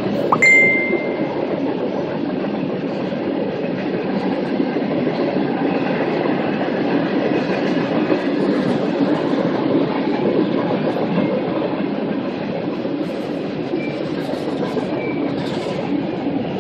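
BNSF train's cars rolling past: a steady rumble of wheels on rails. About half a second in there is a sharp metallic clank with a brief ringing tone.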